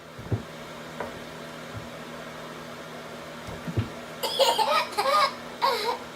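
A baby laughing in several loud, high-pitched bursts, starting about four seconds in. Before that there are only a few soft knocks over a steady low hum.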